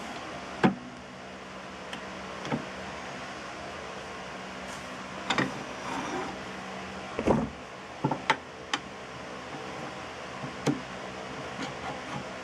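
Steady mechanical hum with a few fixed tones, broken by scattered short clicks and knocks, the loudest near the start and a cluster around seven to nine seconds in.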